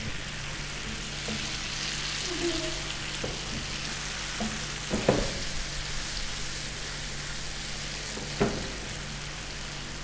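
Beef pasanday and chopped tomato–green chilli gravy sizzling in hot oil in a frying pan as a spatula stirs them together. A few knocks of the spatula against the pan come through the steady sizzle, the loudest about five seconds in.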